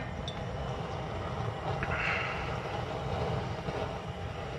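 Pot of water at a rolling boil on the stove, a steady bubbling rumble, with the ricotta gnocchi cooking in it and nearly done.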